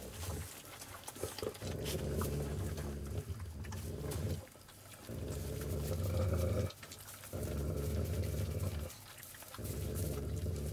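Low rumbling dog sounds from a mother dog and her nursing puppies, coming in five stretches of one to three seconds with short breaks between.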